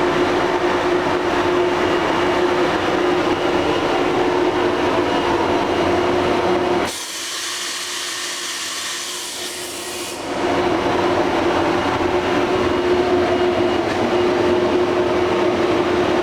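Miyano TSV35 CNC drill-tap machining center running: a steady mechanical hum with a held tone. About seven seconds in, a high hiss takes over for about three seconds while the lower hum drops away, then the hum returns.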